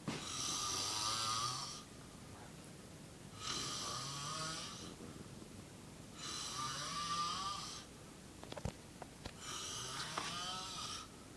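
A man snoring heavily in deep sleep: four long snores about every three seconds, each rising in pitch, with a few short clicks between the third and fourth.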